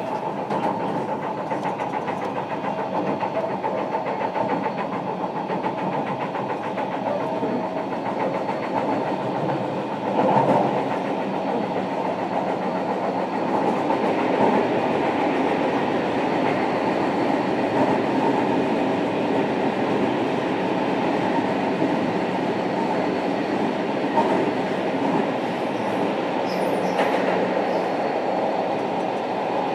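JR Kyushu 305 series electric train with Toshiba permanent-magnet synchronous traction motors, running between stations, heard from inside the motor car: a steady rumble of wheels on rail and running gear. A single knock comes about ten seconds in, and the sound grows a little brighter a few seconds later.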